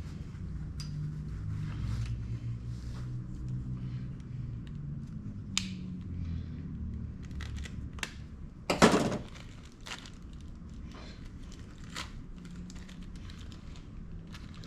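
Carburetor rebuild-kit parts being handled on a workbench: scattered light clicks and plastic crinkling, with one louder crinkling tear about nine seconds in.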